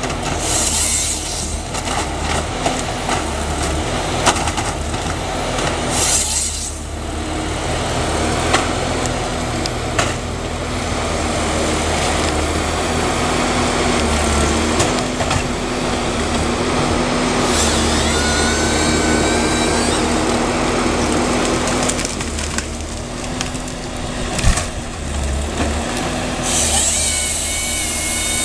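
Valmet 941.1 forestry harvester running steadily under hydraulic load, while its harvester head's chainsaw cuts through maritime pine logs several times. Each cut is a short burst of high whining and tearing, the last one near the end.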